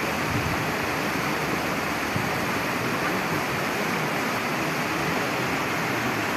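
Steady rushing noise, even and unbroken, with no distinct calls or knocks.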